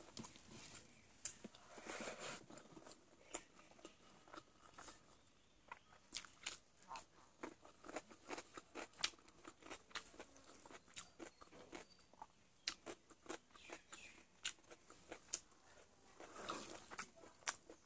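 Close-up eating sounds: chicken being bitten and chewed with a run of short, sharp crunching clicks and wet mouth noises.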